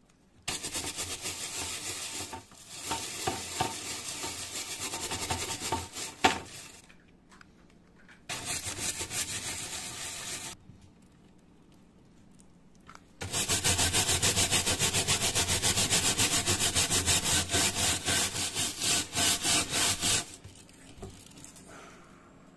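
A brush scrubbing the wet, grimy plastic key frame of an old HP keyboard, in three bouts. The last bout begins a little past halfway and is the longest and loudest, with rapid, even strokes.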